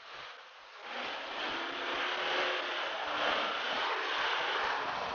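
Mitsubishi Pajero SUV driving through deep mud and slush, its engine pulling under load while the tyres churn and spray mud. The sound gets louder about a second in.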